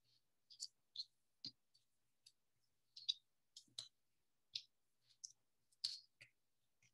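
Faint, scattered clicks and light rustles of paper cutouts being handled and laid down on a table, about a dozen irregular small taps.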